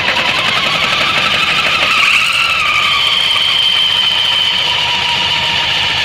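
Suzuki Burgman 650 running with its CVT variator giving a steady high whistle over the engine noise. The whistle rises a little in pitch about two seconds in, then holds. The owner cannot yet explain the whistle and is tracing it in the variator.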